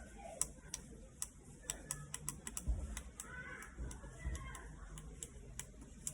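Irregular light clicks and taps of small parts being handled, as LED strip wiring is fitted to its driver.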